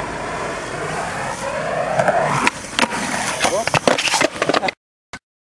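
Skateboard wheels rolling on concrete with a wavering whir, followed by a run of sharp clacks from the board, which cut off suddenly about a second before the end.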